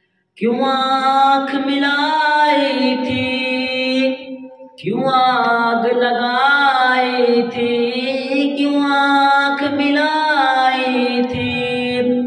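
A boy's solo voice singing an Urdu naat without accompaniment, in two long phrases of held, ornamented notes. There is a short breath between the phrases about four and a half seconds in.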